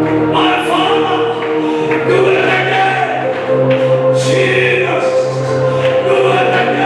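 Congregation and choir singing a gospel song over instrumental accompaniment, with a steady beat.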